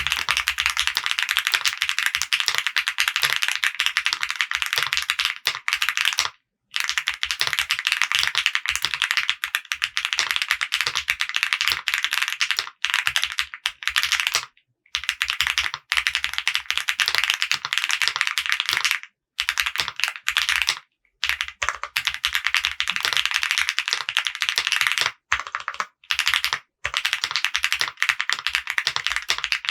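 Typing on a Mr. Suit mechanical keyboard with an FR4 plate, Akko CS Jelly White linear switches lubed with Krytox 205g0, and CMK ABS keycaps: fast, continuous keystrokes in runs of several seconds, broken by a few short pauses.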